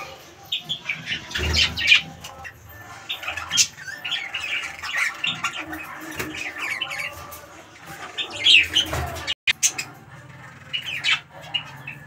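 Budgerigars chattering in a cage: a steady stream of short, quick chirps and warbling squawks.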